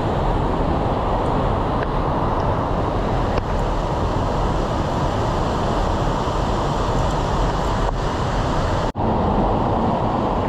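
Whitewater river rushing through a narrow rock gorge, a steady loud rush of water, broken once by a brief gap near the end.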